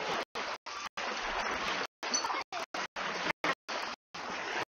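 Small lake waves washing and lapping at a sandy shore, heard as a steady rushing noise. The sound cuts out completely many times, in short gaps about every half second: dropouts in the recording.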